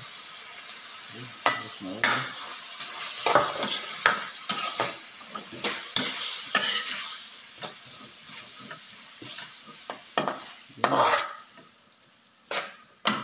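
Metal ladle scraping and clinking against an aluminium wok as carrot strips and ketchup are stirred, with the pan sizzling underneath. The stirring strokes come irregularly, and the sound drops much quieter in the last couple of seconds, with a few final scrapes.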